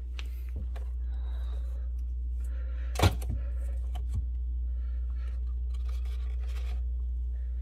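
Food containers being moved around on a refrigerator shelf: plastic cups, jars and packages rustling, scraping and clicking, with one sharp knock about three seconds in and a lighter one about a second later, over a steady low hum.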